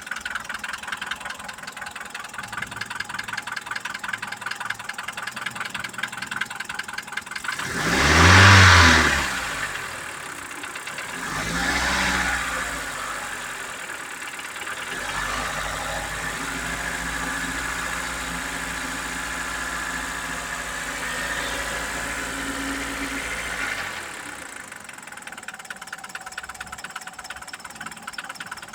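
Mitsubishi 4G94 2.0-litre four-cylinder engine idling with a knock. It is revved up and down twice in quick succession, then held at raised revs for several seconds before dropping back to idle. The owner does not know what is causing the knock.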